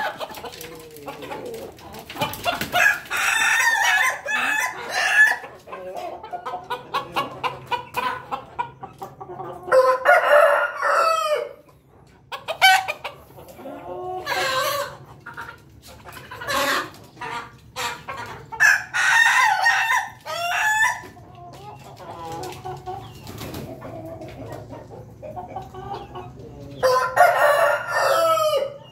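Ayam ketawa (laughing chicken) rooster crowing about four times, each crow a long call broken into rapid stuttering syllables, with shorter clucks and calls from the fowl in between.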